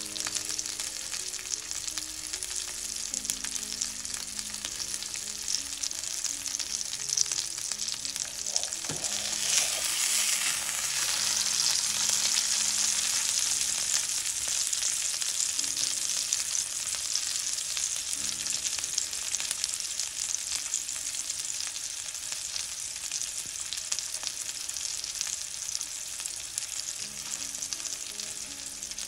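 Wagyu beef steak sizzling in bubbling rendered fat in a preheated copper frying pan on medium heat, a steady hiss. The sizzle swells louder about nine seconds in, when the steak has been turned over onto a fresh side.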